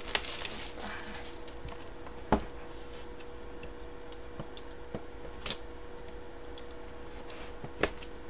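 Hands handling and opening a cardboard box. A brief scraping rustle of cardboard comes first, then a few scattered taps and knocks, about three of them, over a faint steady hum.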